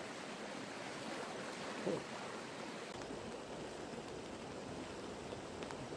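Muddy creek, swollen after rain, rushing steadily over its bed with an even hiss. A brief low falling vocal sound, like a grunt, about two seconds in.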